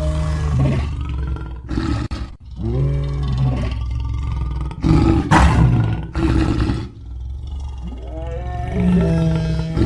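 Sound-designed roars and growls of a Cryolophosaurus (an animated dinosaur), heard as a series of pitched calls that bend up and down over a deep, steady rumble. A harsher, louder roar comes about five seconds in.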